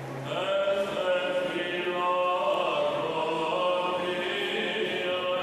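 Greek Orthodox church chanting: voices singing long held notes that move slowly up and down in pitch, beginning just after the start.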